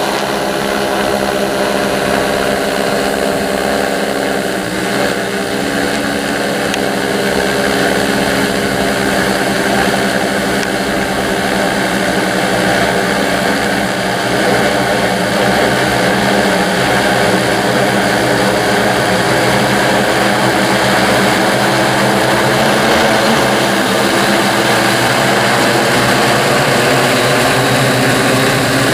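Large six-rotor crop-spraying drone with 30-inch propellers hovering and flying overhead: the steady hum of its electric motors and propellers, several tones wavering slightly as it moves.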